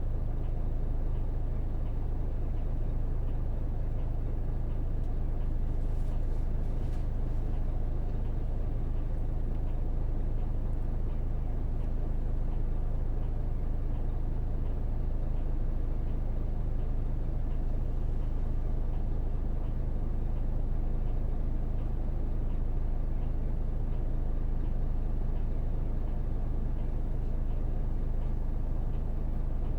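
Hino PJ-KV234L1 city bus with its 6HK1 inline-six diesel, heard from inside the passenger cabin: a steady low engine and road rumble while the bus is running, with a few faint clicks about six seconds in.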